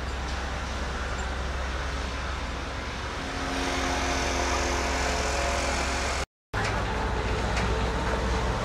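Steady motor rumble over outdoor noise. A little past the middle a steady tone joins it, then the sound cuts out for a moment and comes back with a deeper hum.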